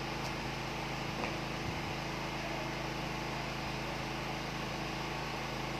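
Steady low hum with an even hiss underneath: room tone, with no distinct handling sounds.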